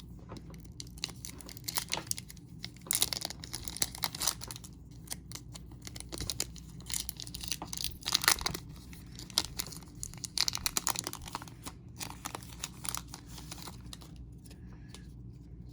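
A baseball card pack's wrapper being torn open and crinkled by hand: a dense run of sharp crackles and rustles, louder in clusters about 3, 8 and 10 seconds in.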